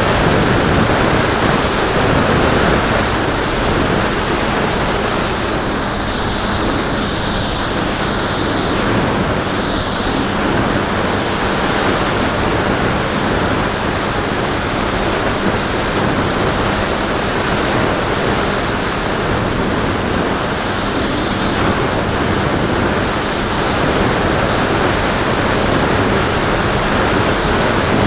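Steady rush of wind over the microphone of a camera mounted on the wing of a Bixler 2 RC plane in flight. The plane's brushless electric motor and propeller run underneath as a faint steady hum.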